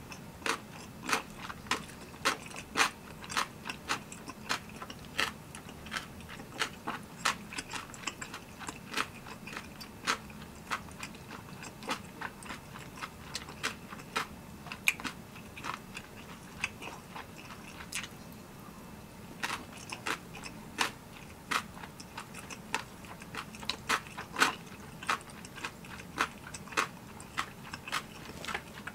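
Close-miked chewing of spicy tteokbokki rice cakes: a steady run of sharp, wet mouth clicks, one or two a second, with a short pause about two-thirds of the way through.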